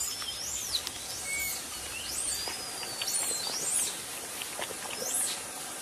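Several high, thin whistled bird calls sweeping up and down in pitch, one of them drawn out near the middle, over a steady forest hiss, with a few faint short ticks near the end.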